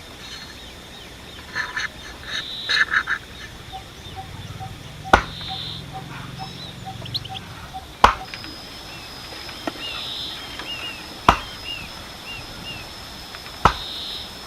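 Four sharp knocks a few seconds apart, with poultry and small birds calling in the background.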